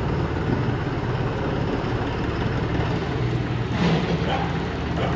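John Deere 5405 tractor's three-cylinder diesel engine running steadily at low revs as the tractor moves off slowly.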